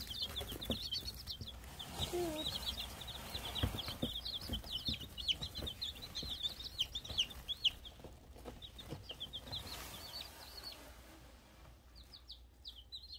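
A brood of week-old chicks peeping: rapid, high-pitched cheeps from several birds at once, with rustling and knocks as one chick is picked up by hand. The peeping pauses briefly near the end.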